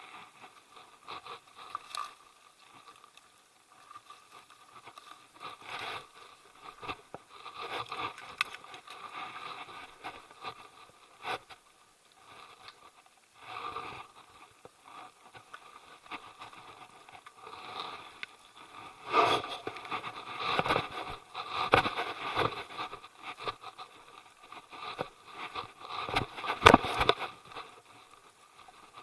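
Irregular scraping and crunching noises of a hiker moving along a trail, louder and busier in the second half, with one sharper knock near the end.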